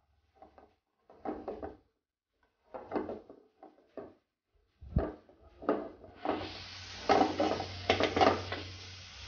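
Spatula scraping and tossing shredded cabbage, carrot and capsicum around a non-stick frying pan, in short separate strokes with a sharp knock about five seconds in. From about six seconds the vegetables sizzle steadily in hot oil over high heat, with more stirring strokes on top.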